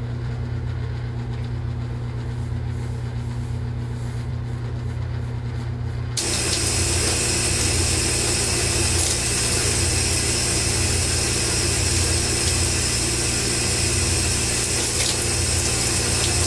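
A small electric motor running steadily with a low hum and an airy rush. About six seconds in, the rush suddenly becomes louder and brighter, as if switched to a higher setting.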